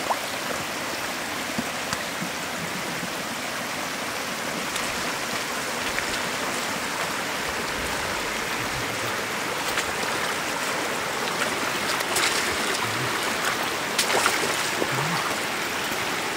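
Shallow floodwater flowing steadily over the ground, with a few brief knocks in the second half.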